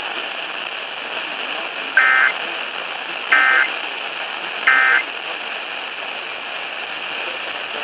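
Three short bursts of Emergency Alert System SAME digital data, a warbling two-tone screech, each about a third of a second long and spaced about a second and a third apart. They are the end-of-message code that closes the alert. A steady radio hiss runs underneath.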